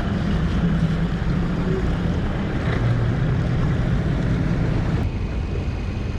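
Bass boat's outboard motor running steadily, with wind noise on the microphone. About five seconds in the sound changes abruptly to a quieter, steady hum.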